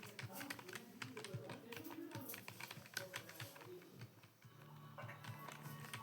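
Fast, irregular keystrokes on a computer keyboard during Hindi typing practice. The clicking thins out about four seconds in, and a steady low tone comes in near the end.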